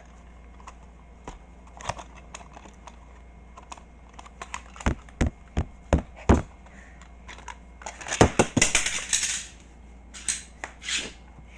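A small cardboard toy-car box being opened by hand: scattered clicks and taps, four sharp knocks around the middle, then about a second and a half of rustling and scraping packaging.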